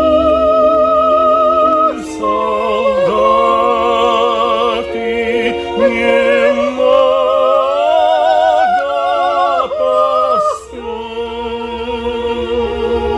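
Music: a slow melody with wide vibrato on held, gliding notes over a sustained accompaniment. It is an operatic-sounding wordless passage between verses of a song.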